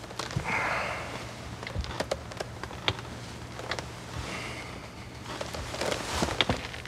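A chair creaking and clothes rustling as a seated man shifts his weight and leans back, with a few sharp small clicks and a faint steady low hum underneath.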